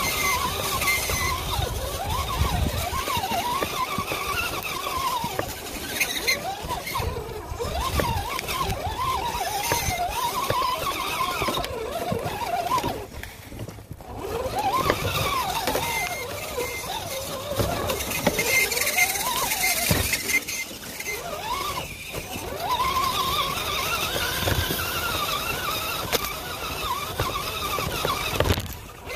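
RC crawler's electric motor and gears whining, the pitch rising and falling over and over with the throttle, over the crunch of tyres on snowy gravel. The whine drops out briefly about halfway through and again near the end.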